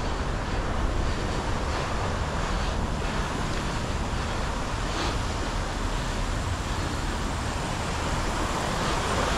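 Steady rush of wind on an action camera's microphone with tyre rumble from a mountain bike rolling along, broken by a few faint clicks or rattles.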